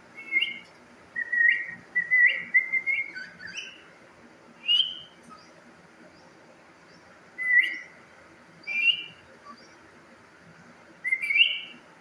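Budgerigars chirping in short, high calls: a busy run of chirps in the first four seconds, then single calls every few seconds.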